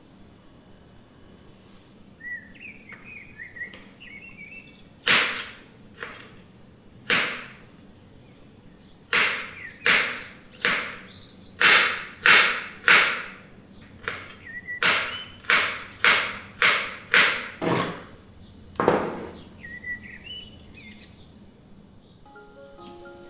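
Knife chopping fresh strawberries on a cutting board: about fifteen sharp knocks of the blade striking the board, in an uneven rhythm, mostly half a second to a second apart, some in quick runs.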